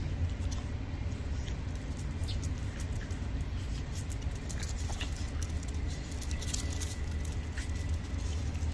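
Patterdale Terriers scuffling as they wrestle on concrete: their claws scratch and tap on the pavement in scattered clicks, over a steady low rumble.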